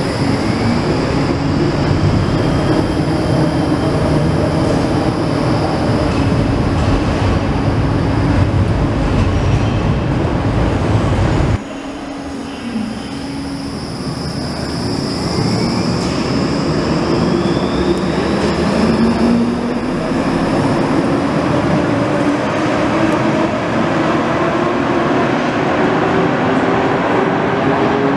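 Bombardier low-floor trams pulling away through an underground station, their electric traction motors whining and climbing in pitch over steady wheel and running noise. The sound cuts abruptly a little under halfway through. After that a second tram sets off and its whine rises steadily toward the end.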